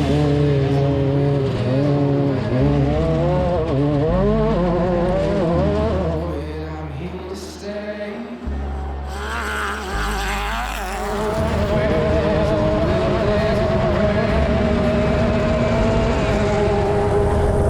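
Class 10 off-road race car engine at racing speed, its pitch rising and falling for the first few seconds, dropping away briefly midway, then holding a steady high note. Music plays underneath.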